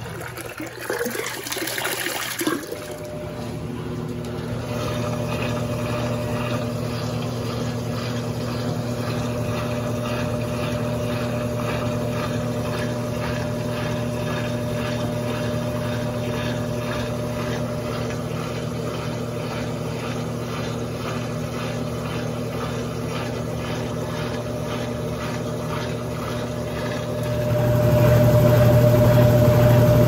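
Brastemp Total 9 kg top-load washer in its spin: drain water splashes into a laundry tub for the first couple of seconds, then the motor and spinning drum give a steady hum with several held tones. The hum gets louder near the end, heard close to the motor and belt drive under the machine.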